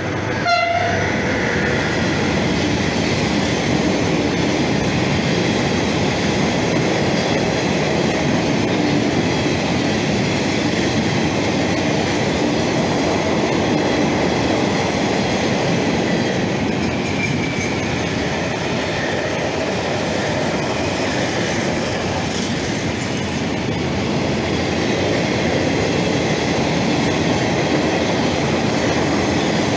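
Long train of empty flat wagons rolling steadily past on the rails with a continuous rumble and the clickety-clack of wheels over rail joints. A yellow SNCF Infra BB 75000 diesel locomotive hauling it goes by right at the start.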